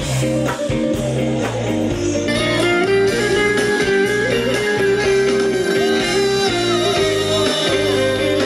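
Live band music with guitar to the fore, playing loud and steady.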